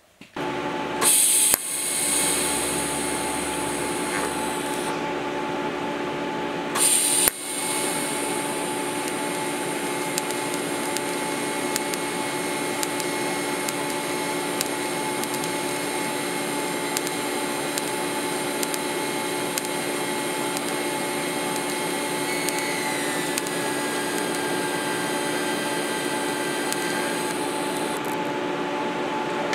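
TIG welding on steel body mounts: the welder's steady hum and whine under the hiss of the arc. Two short, loud bursts of hiss come about one second and seven seconds in, and the high hiss drops away near the end.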